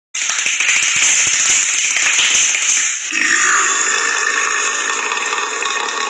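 A man's long, loud burp, rough and crackling. It dips briefly about three seconds in, then carries on lower and steadier.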